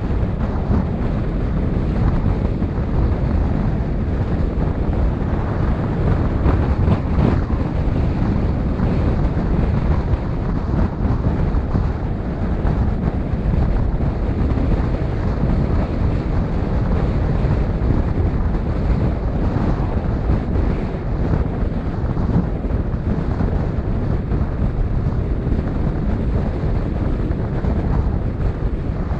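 Steady wind noise buffeting the microphone of a GoPro on a moving car, over low road and engine noise.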